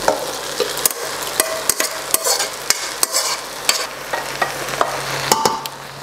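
A metal ladle and a wooden spoon scraping and knocking against steel cookware as chicken curry and cooked basmati rice are spooned into layers in a pot, with irregular clicks over a steady hiss.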